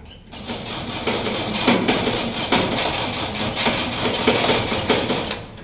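Starter motor cranking a petrol Jeep's Hurricane engine in a steady, rhythmic churn for about five seconds, then stopping suddenly, without the engine catching: a failed start attempt.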